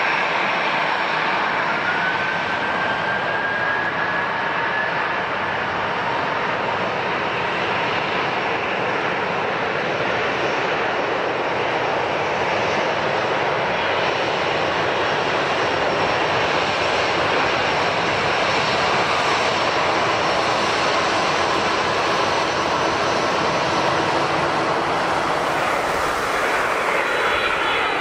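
Jet engines of an Airbus A320-214 (CFM56-5B turbofans) running at taxi idle: a steady rushing hiss with a faint whine that rises slightly a few seconds in.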